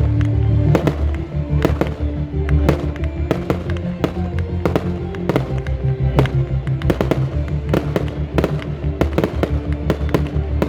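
Fireworks going off in a rapid string of sharp bangs and cracks, a few each second, over music with a steady bass line.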